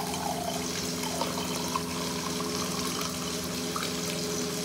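Water poured from a steel bowl into a steel tumbler, a steady splashing trickle as the tumbler fills, over a steady low hum.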